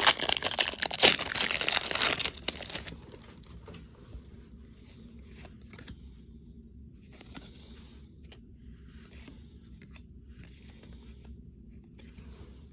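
Foil wrapper of a baseball trading card pack being torn open, crinkling loudly for about the first three seconds. After that come soft, short rustles and light clicks as the cards are handled.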